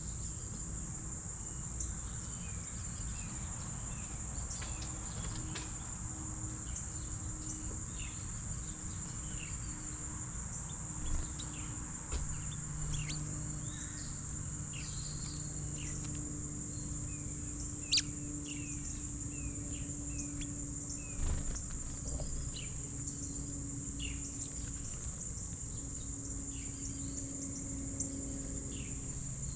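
Insects trilling in one continuous high-pitched drone, with short bird chirps scattered over it and a single sharp click about eighteen seconds in.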